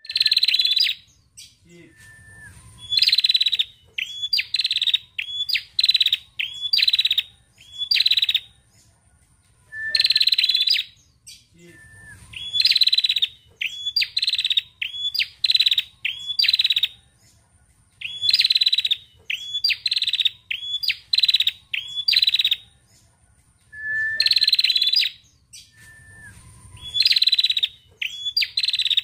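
A female tailorbird (prenjak) singing. Each phrase is a long trill followed by a run of short, sharp, high chirps, a little under a second apart. The phrases repeat about every eight to ten seconds, with short pauses between them.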